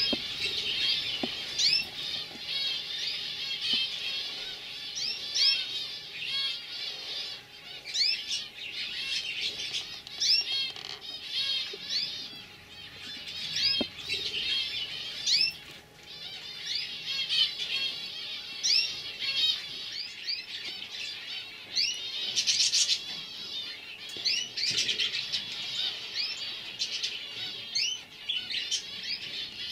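Young domestic canaries chirping and twittering continuously, many quick rising and falling notes overlapping.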